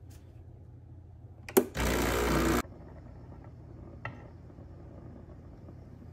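Espresso machine running in one loud burst of just under a second, starting with a sharp click, over a low steady hum.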